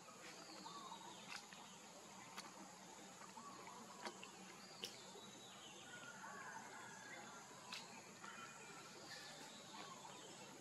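Faint outdoor ambience: a steady high insect hum with a few faint, short chirps and several light, scattered clicks.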